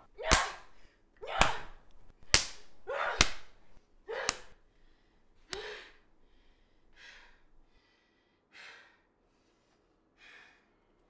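A person gasping and grunting hard, with sharp smacks about once a second, then slowing to fainter ragged breaths near the end.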